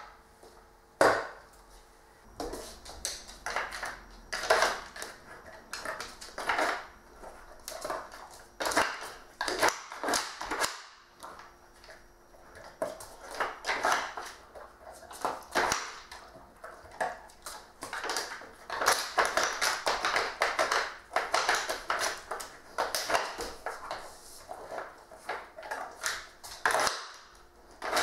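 Dog working a wooden Dog Brick treat puzzle with nose and paw: its sliding blocks knock, clack and scrape irregularly against the board, with a sharp clack about a second in.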